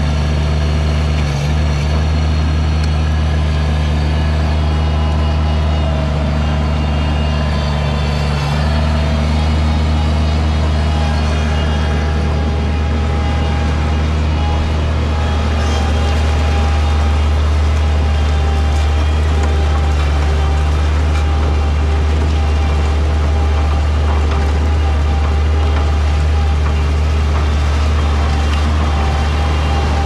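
Bobcat MT55 mini track loader's diesel engine running steadily as the machine digs and drives on its rubber tracks, with a thin whine over the engine in the second half.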